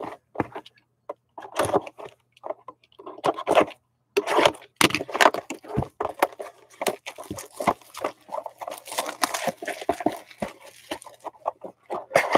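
Upper Deck Allure hockey card box and packs handled and opened by hand: a run of irregular rustling, crinkling and tapping of cardboard and wrappers.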